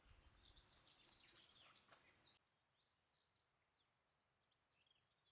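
Near silence with faint, scattered high chirps of small songbirds. A little past two seconds in, the background hiss drops away abruptly.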